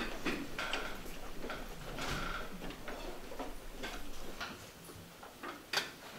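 Scattered light clicks and knocks from people moving about on a stage: footsteps, folding chairs and music stands as string players take their seats, with a couple of short squeaks among them.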